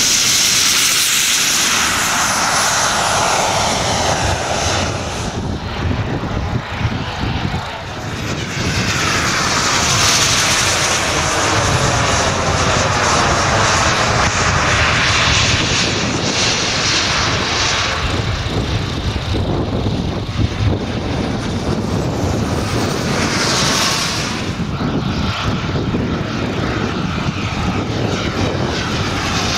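Engine of a giant-scale radio-controlled model aircraft running in flight, swelling and fading several times as the model passes by.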